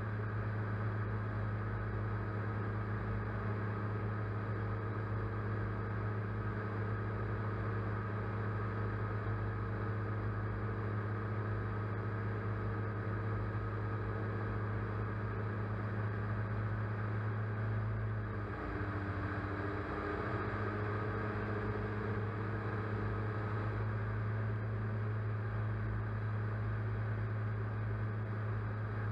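A drone's electric motors and propellers running with a steady hum, picked up by its onboard camera. About two-thirds of the way through, the pitch wavers briefly as the motors change speed.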